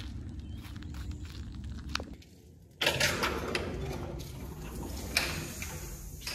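Footsteps on a gravel path. About three seconds in, a door opens into a small cinder-block room, and a louder steady rushing noise with a few knocks follows inside.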